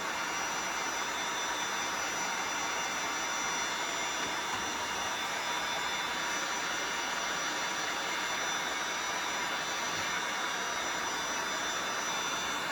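Heat gun blowing steadily, a constant rush of air with a faint motor whine, warming a sticker on a plastic goalie-mask backplate to soften its adhesive for peeling.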